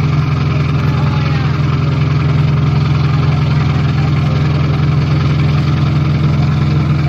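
Sightseeing boat's engine running steadily: a constant low drone that holds the same pitch and level throughout.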